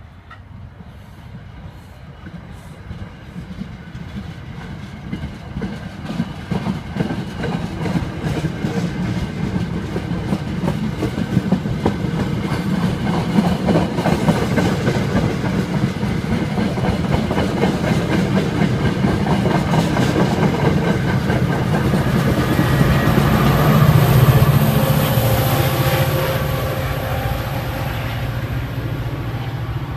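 MBTA commuter rail train of coaches and a diesel locomotive running past: steady rumble with wheels clicking over the rails. It grows louder over the first half and is loudest about 24 seconds in, then eases a little.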